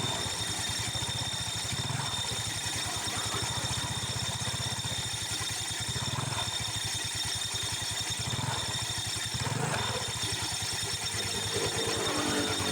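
Yamaha Mio Sporty scooter's single-cylinder engine running at a steady idle, with a rough, hissing sound from the CVT. The mechanic traced the noise to a rusted clutch bell and overly stiff clutch shoe springs.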